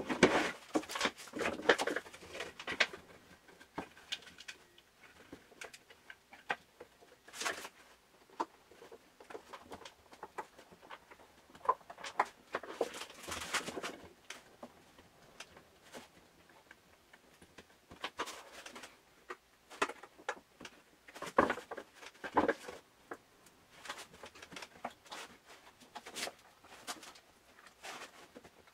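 Irregular light wooden clicks, knocks and scrapes from handling and fitting a Zuckermann harpsichord's wooden lower guide back into the case, with a few louder clusters of knocking.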